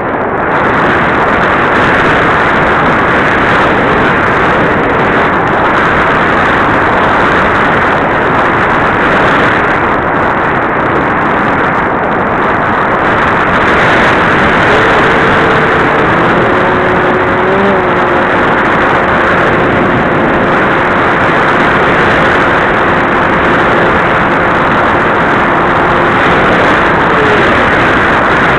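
Steady rush of wind and propeller-driven motor noise picked up by a camera on board a flying radio-controlled fixed-wing airplane. About halfway through, a faint steady two-note tone joins in and stops shortly before the end.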